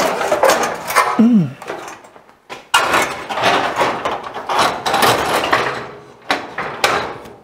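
Aluminium grille shell of a Ford F100 clattering and scraping against the truck's bare front sheet metal as it is lifted and set in place. There are knocks in the first second, a long stretch of scraping and rattling, and two sharp knocks near the end.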